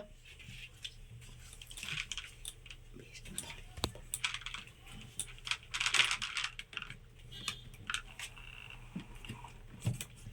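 Irregular small clicks, creaks and short rubbing swishes from a hand-worked syringe-hydraulic excavator model: water-filled plastic syringe plungers being pushed and pulled, and the model's stick-and-board arm shifting at its joints.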